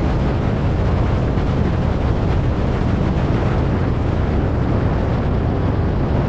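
Steady rush of wind on the microphone of a roof-mounted GoPro on a moving vehicle, with road and engine rumble underneath, in audio sped up four times.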